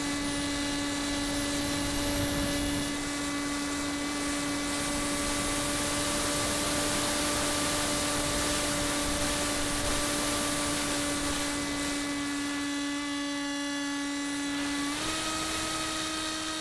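Radio-controlled model aircraft's motor and propeller running as a steady whine at one pitch, rising a step near the end as the throttle is opened slightly.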